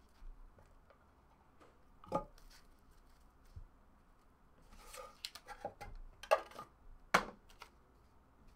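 Handling noise from a clear plastic card case and a stack of trading cards with foam pads: scattered clicks, taps and knocks as they are turned over and set down on a table. The loudest knocks come about six and seven seconds in.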